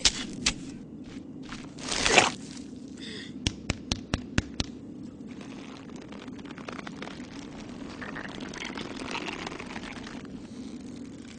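A wooden stick striking and scraping into hard, dry sand: sharp knocks at the start, a rising rush of sand about two seconds in, and a quick run of about six knocks around four seconds in. A low steady hiss and hum follow.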